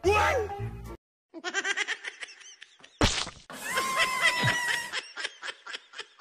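Comedy sound effects laid over a bicycle fall. A quick falling whistle opens it, then a rapid run of short pulses. About three seconds in comes a sudden loud crash with held ringing tones, and a string of short pulses fades away after it.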